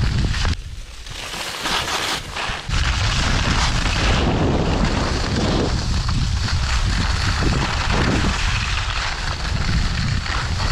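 Wind buffeting the microphone of a camera carried by a skier moving downhill, with skis hissing and scraping on the snow. The wind noise eases for about two seconds near the start, then comes back strong and steady.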